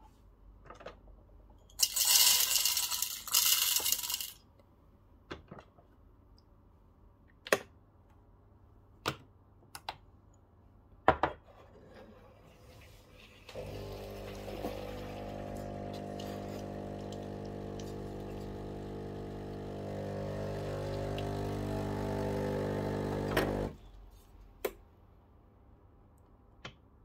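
Coffee beans poured from a bowl into the espresso machine's grinder hopper in two quick rattling pours, followed by a few light knocks. Then a Breville Barista Pro espresso machine runs steadily for about ten seconds, gets a little louder partway through, and cuts off suddenly.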